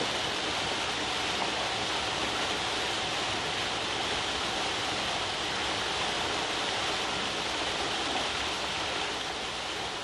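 Waterfall dropping about 20 metres into its plunge pool: a steady, even rush of falling water.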